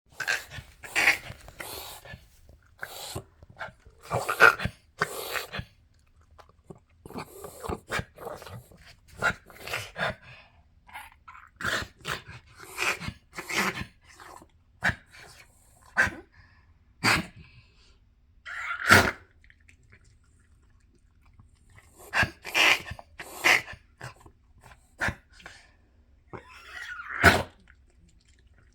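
A pet dog coughing in repeated fits throughout, each fit a cluster of short, sharp coughs, with brief pauses between fits and one longer pause about two-thirds of the way through.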